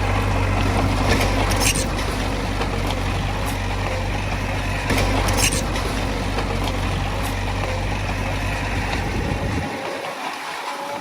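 Diesel engine of heavy earthmoving machinery running steadily, with a few sharp metallic clanks. A deep low drone cuts off near the end, leaving a lighter engine sound.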